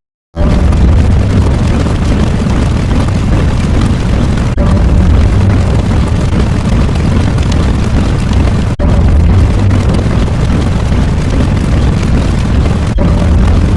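Loud, dense rumbling noise, heaviest in the bass, of the explosion or eruption kind. It restarts about every four seconds after a short break, as if a sound-effect clip is being looped.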